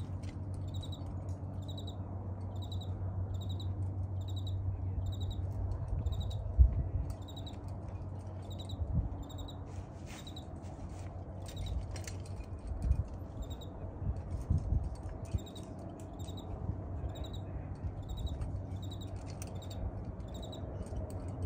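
A short, high-pitched animal chirp repeated evenly about twice a second, over a steady low rumble with a few dull thumps, the loudest about six and a half seconds in.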